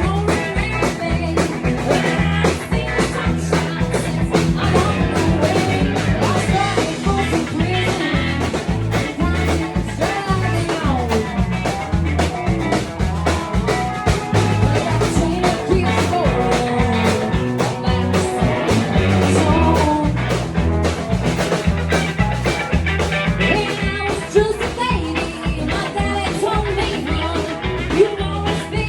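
Rock 'n' roll band playing a song with singing over a steady drumbeat.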